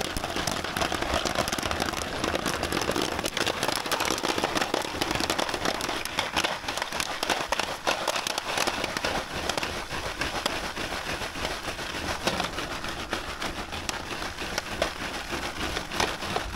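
Jiffy Pop popcorn popping inside its puffed-up foil pan, a dense, rapid crackle of kernels bursting, as the pan is shaken by its handle on a camp stove grate.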